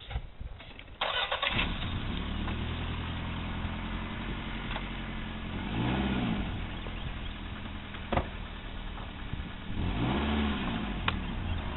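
An engine starts about a second in and runs at idle, revved up and back down twice, with a couple of brief sharp clicks along the way.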